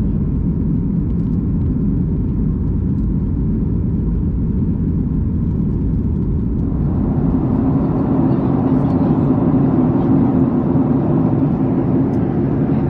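Steady cabin noise inside a Boeing 737 MAX 8 climbing after takeoff: the rushing drone of its CFM LEAP-1B engines and the airflow past the fuselage. About halfway through, a steady hum joins in and the sound grows a little louder.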